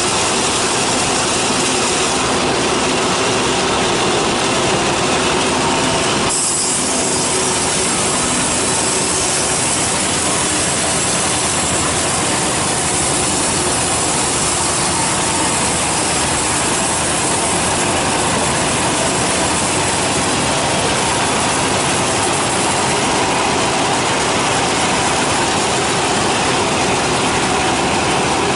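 Large band sawmill sawing through a teak log: a loud, steady mix of motor noise and the blade's hiss in the wood. The high hiss grows stronger about six seconds in and holds.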